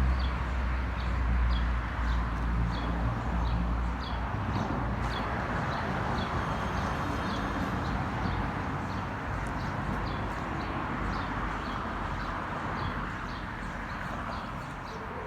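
Outdoor background noise with a low engine hum that fades out after about four seconds, over a steady run of short high chirps, about two to three a second.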